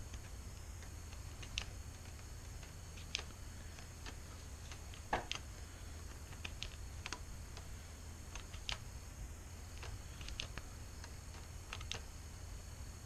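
Tin snips cutting black hexagonal grille mesh: irregular sharp snips and clicks as the blades close, about a dozen spread out, the loudest about five seconds in.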